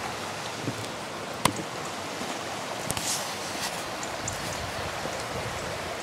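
Steady rush of a mountain stream running over rocks, with a single sharp click about a second and a half in.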